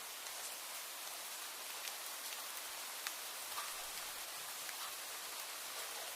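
Steady rain falling, an even hiss with scattered sharper drops hitting a surface.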